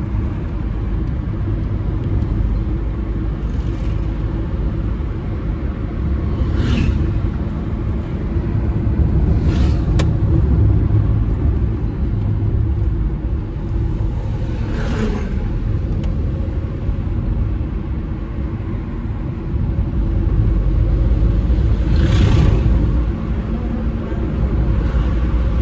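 Inside the cabin of a moving Suzuki car: a steady low rumble of engine and road noise. Several brief rushes as oncoming vehicles pass.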